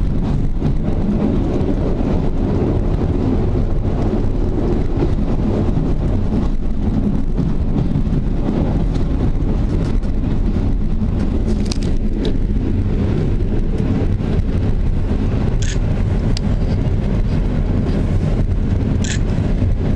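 Steady rumble of a passenger train running along the track, heard on board, with a few brief high-pitched sounds in the second half.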